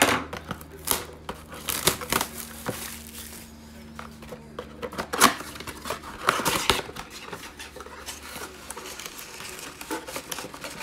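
Plastic shrink wrap crinkling and tearing as it is stripped from a cardboard trading card box, then the box's cardboard flaps pulled open with irregular scrapes and rustles.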